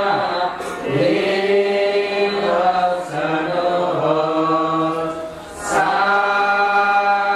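Buddhist chanting: voices holding long, steady notes, broken by short pauses for breath about a second in, near three seconds and again around five and a half seconds.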